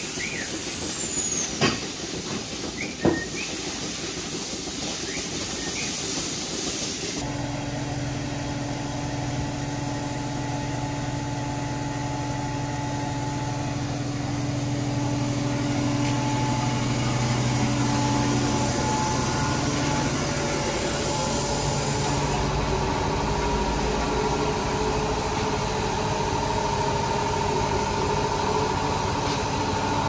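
A water hose jet spraying the milking-parlour clusters and rail: a steady hiss with two sharp knocks. About seven seconds in, it gives way to a milk collection tanker truck running steadily, its engine and pump drawing milk through a hose, a low drone with a higher steady tone above it.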